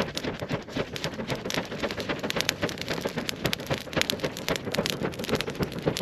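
Glowing lump charcoal crackling and popping densely as it is fanned, a rapid, continuous patter of sharp snaps.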